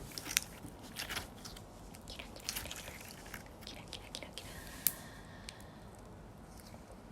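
Slime squished and pulled close to the microphone, giving sticky, wet clicks and crackling pops in irregular clusters, with one sharp pop about five seconds in.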